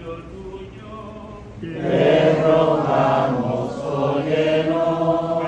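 Litany chanted in church: a man's voice chants an invocation, then about two seconds in the congregation answers together in a louder, sustained unison chant.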